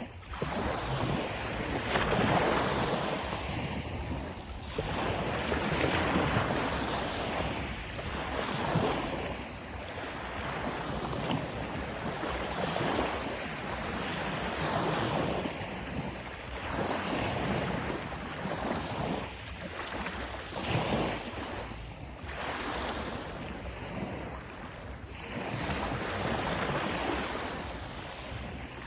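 Sea waves washing in one after another: a rushing noise that swells and eases every few seconds, with wind buffeting the microphone.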